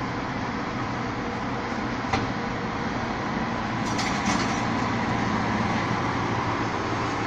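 Rear-loading garbage truck running steadily while bulky waste is loaded into its rear hopper, with a sharp knock about two seconds in and a short clatter of hard items around four seconds in.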